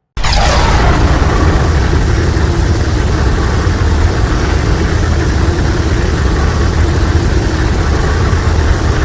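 Monster atomic breath sound effect, Godzilla-style: a loud, sustained blast with a deep rumble that starts suddenly just after the start and holds steady, with a falling whoosh in its first second.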